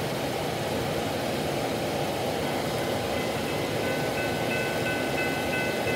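Steady rushing noise of wind and rain, with a distant CN locomotive horn sounding from about halfway through, its high chord tones fading in and out.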